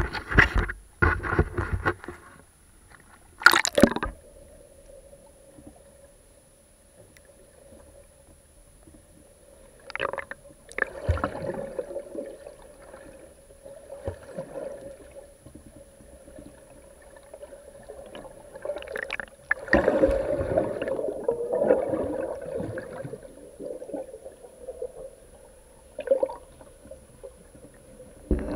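Waterproof camera housing pulled through seawater on a fishing line: muffled underwater rushing and gurgling that swells in surges, over a faint steady hum. Sharp knocks and splashes come in the first few seconds as it goes into the water.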